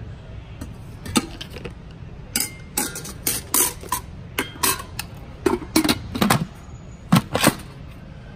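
Stainless steel inner pot of an Instant Pot pressure cooker and its plastic accessories being handled: a string of clanks and knocks of metal on metal and plastic, the loudest two near the end.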